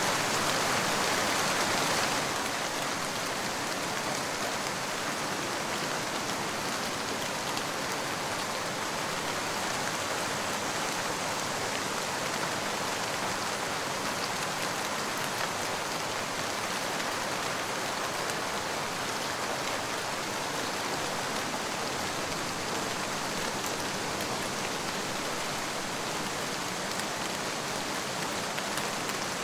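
Steady rain falling, a dense even hiss of drops. About two seconds in it becomes a little quieter and less bright, then holds steady.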